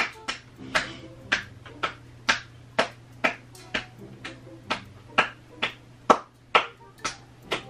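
Sharp slaps in a steady rhythm, about two a second, staged to sound like sex.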